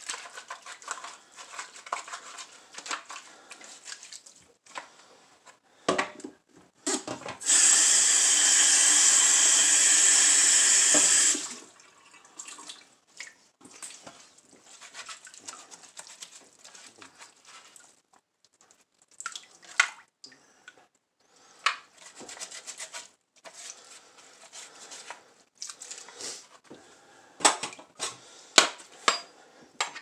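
Plastic humidifier part being scrubbed with a sponge over a stainless-steel sink of water: soft scratchy rubbing and splashing, with a faucet running in a steady rush for about four seconds partway through. A few sharp knocks near the end.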